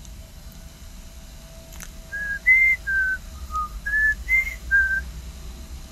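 A short run of seven clear whistled notes at varying pitches, like a simple tune, each held briefly and steady.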